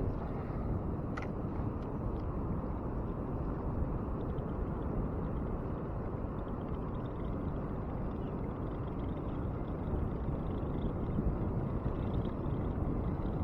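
Steady low rushing noise, unbroken throughout, with a couple of faint clicks about a second in.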